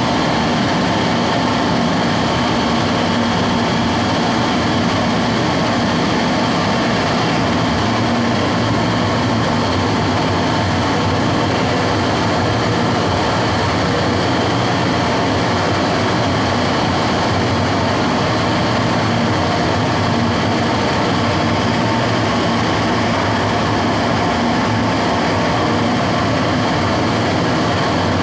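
Gas-fired cremation furnace running, its burner and combustion-air blower making a loud, steady rushing noise with a faint hum, unchanging throughout.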